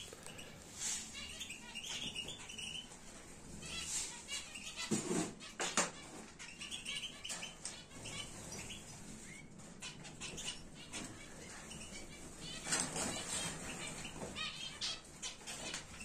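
Small caged finches, canaries and goldfinches, fluttering their wings as they fly about and land on the cages, with scattered short chirps.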